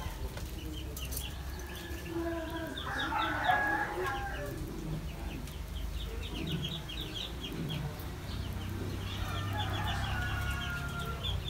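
Backyard chickens clucking and calling, with a longer cluster of calls about three seconds in and another near the end, over quick runs of short high chirps.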